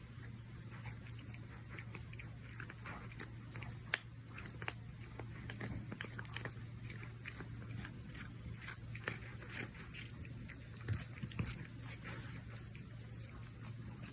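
Cat grooming up close, licking and chewing at its own claws: irregular wet smacks and small sharp clicks, one louder click about four seconds in.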